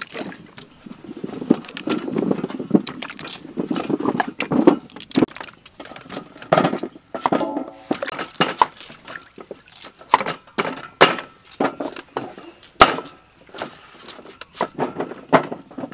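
Irregular short splashes and knocks as cut sweet potato pieces are dropped into a metal basin of water, with a sharper click about 13 seconds in.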